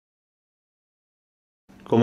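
Dead silence with the sound cut out, then a man begins speaking near the end.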